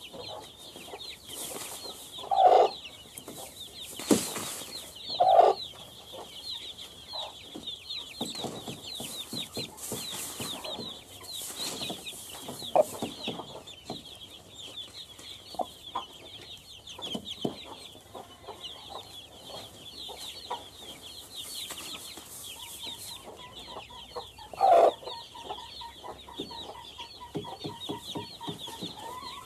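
Domestic hen clucking loudly three times, short single clucks, over a brood of chicks peeping continuously in high, rapid cheeps. A sharp knock sounds about four seconds in.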